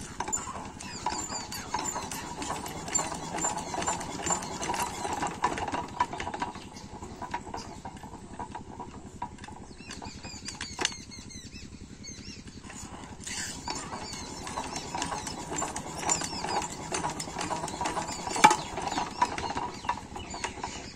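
Single-cylinder diesel water-pump engine being hand-cranked and chugging as it turns over to start, in two busy spells with a quieter lull in the middle.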